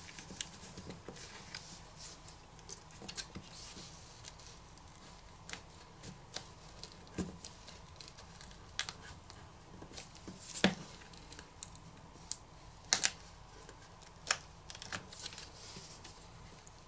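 A plastic pry tool working the black plastic cover that holds the wireless charging pad off the inside of a Nokia 9 PureView smartphone: scattered small clicks and scrapes, with louder snaps about 11 and 13 seconds in.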